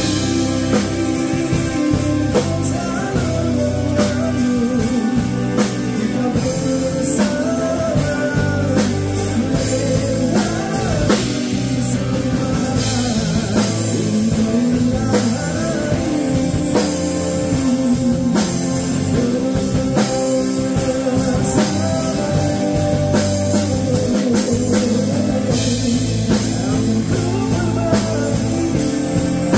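A band playing a rock-style song with guitar and drum kit, with a singer's voice over it.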